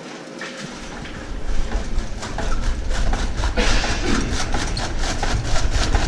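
Powered cabbage grinder running as cabbage is fed into it: a steady low motor rumble with a fast rattling clatter as the cabbage is shredded, loud from about a second in.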